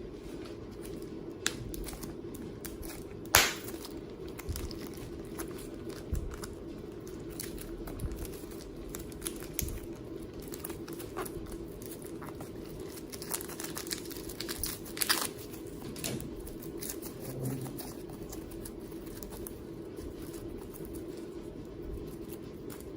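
Slime being handled, making irregular small crackles and crinkles over a steady low hum, with two sharper clicks about three and fifteen seconds in.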